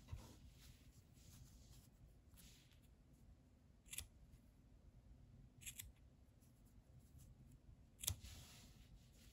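Small scissors snipping through crochet yarn vine ends: a few sharp short snips a couple of seconds apart, one of them a quick double snip, the last the loudest, with faint yarn handling in between.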